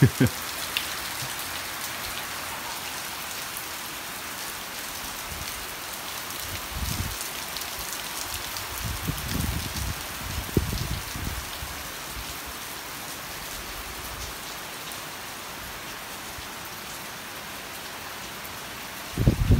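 Heavy rain falling steadily: an even, constant hiss, with a few low rumbles on the microphone partway through.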